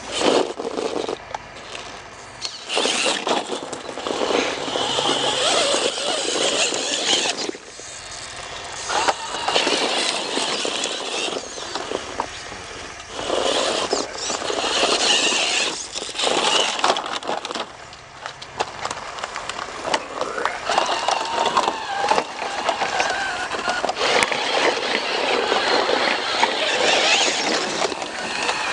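Radio-controlled scale rock crawler's electric motor and gear drivetrain whining in repeated bursts of a few seconds as it is driven over rock, with gritty scrabbling between the bursts.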